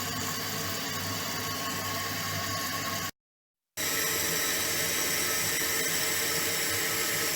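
Toilet tank filling through a newly installed replacement fill valve: a steady hiss of water running in. It breaks off for a moment about three seconds in, then carries on a little louder.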